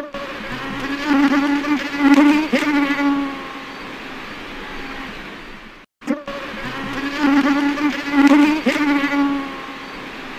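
A flying insect buzzing with a wavering pitch, louder for the first three seconds and then steadier and fainter. The buzz cuts off about six seconds in and starts again, going the same way.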